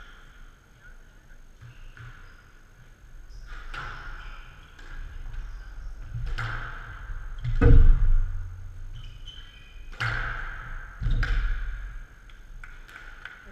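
Squash rally on a glass court: sharp racket strikes and ball impacts on the walls every second or two, the loudest a heavy thud a little past halfway.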